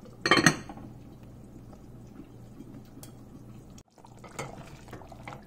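A glass lid clinks onto a ceramic casserole dish about a quarter-second in, with a short ringing. Later a silicone spatula stirs thick curry gravy in the dish, with soft scraping and clicks over a steady low hum.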